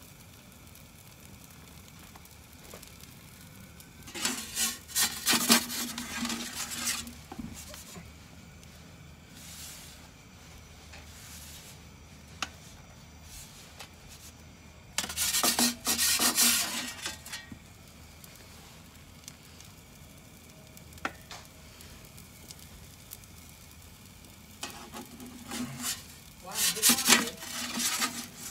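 Metal pizza peel scraping and rubbing on the stone floor of a gas-fired Roccbox pizza oven in three bouts of a couple of seconds each, as the pizza is turned and lifted. Between the bouts the gas flame hisses steadily and quietly.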